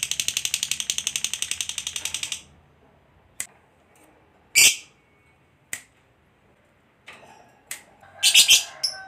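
Lovebird giving its long chattering 'ngekek' call, a fast string of shrill repeated notes that stops about two and a half seconds in. Then come a few single sharp chirps, and a short harsh burst of calls near the end.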